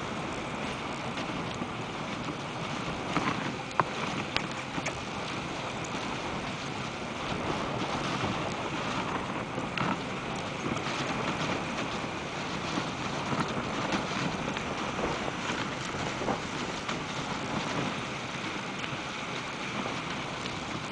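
Steady hiss of a dog sled gliding over packed snow behind a running husky team, with a few sharp knocks about four seconds in.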